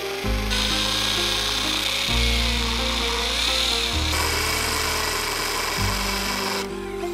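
A woodworking tool working on wood gives a steady high hiss. It starts about half a second in and cuts off near the end, over background music with slow, held bass notes.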